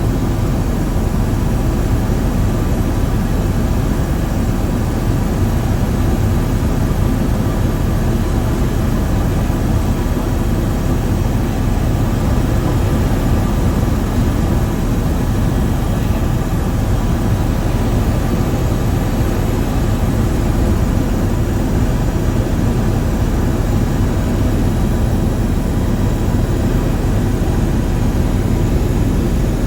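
Steady low drone of a light aircraft in flight, engine and airscrew noise unchanging throughout.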